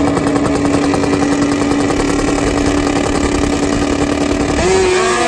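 Drag motorcycles, one a Suzuki Hayabusa with its inline-four, running at the starting line with the engine note held at one steady pitch. About four and a half seconds in, the pitch rises as the bikes launch off the line.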